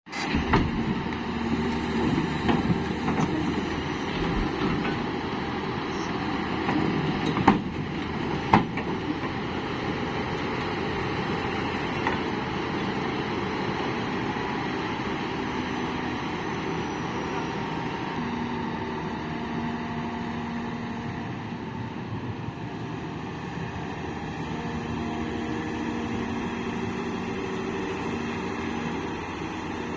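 Caterpillar excavator's diesel engine running steadily as the machine works, with two sharp knocks about a second apart some seven or eight seconds in.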